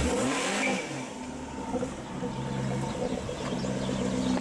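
Jaguar XK RS Supercharged's supercharged V8 running, with a short rise and fall in revs in the first second, then running steadily at idle.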